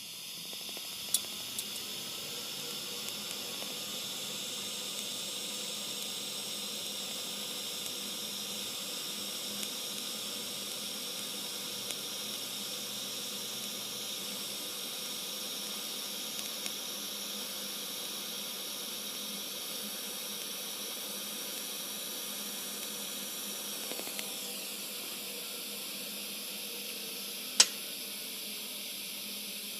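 TIG welding arc hissing steadily, with a few sharp clicks, the loudest near the end.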